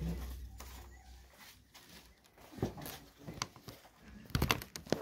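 Low rumble of the narrow-gauge railway engine dies away about a second and a half in, leaving a quiet cab with scattered clicks and knocks. A quick run of clicks comes near the end.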